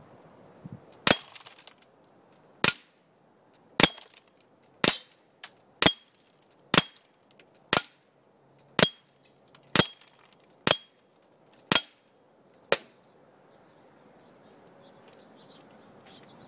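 M84 non-blowback CO2 airsoft pistol firing 0.25 g BBs in a string of about a dozen sharp shots, roughly one a second, then stopping about 13 seconds in.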